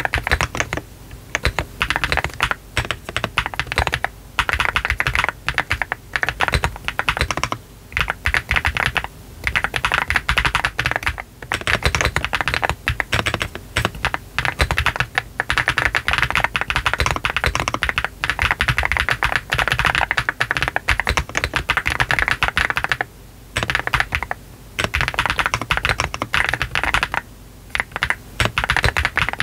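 Fast, continuous typing on a GDK DK1-TKL brass-bottom custom mechanical keyboard built with Y3 switches, a 1.2 mm flex-cut PCB, all foams and soft sock gaskets, under cherry-profile PBT keycaps; a dense stream of keystrokes broken by a few short pauses.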